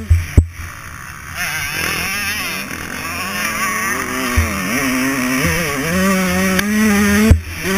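Dirt bike engine, heard from a camera mounted on the bike, revving up and down as the rider works the throttle over a motocross track. A few short thumps come near the start and again near the end.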